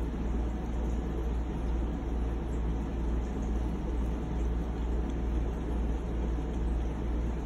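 Steady low background hum and rumble, even throughout, with no distinct events standing out.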